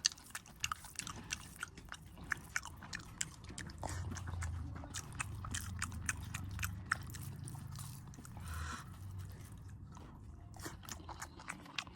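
A person chewing beef close to the microphone, with many quick irregular mouth clicks throughout.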